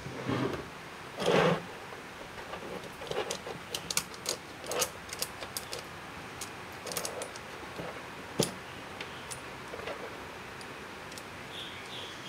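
Steel saw chain clinking and rattling as it is worked by hand around a 12-inch chainsaw guide bar, a run of small irregular clicks and jingles with one sharper click about eight seconds in.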